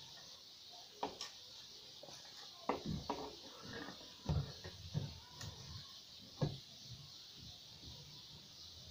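Scattered knocks, clicks and scrapes as a plastic pipe and a wooden stick are handled and bound together with thin wire, over a steady hiss. The sharpest knocks come about four and six and a half seconds in.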